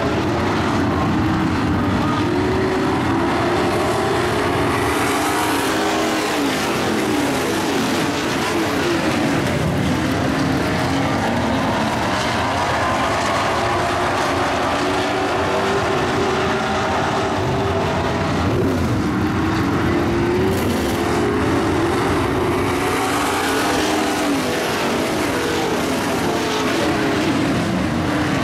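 A field of dirt-track racing pickup trucks running flat out around the oval, several engine notes overlapping and rising and falling as trucks accelerate off the turns and pass by.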